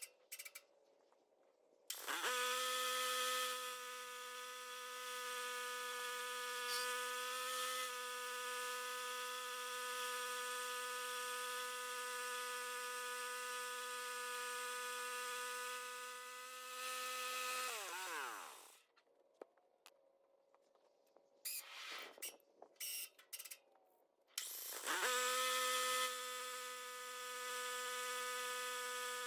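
The gasoline motor on a homemade band sawmill runs at a steady speed with an even buzzing whine while the blade cuts a pecan log. About 17 seconds in, the whine falls in pitch and drops away, leaving a quiet gap with a few light clicks. The same steady buzz comes back suddenly about 25 seconds in.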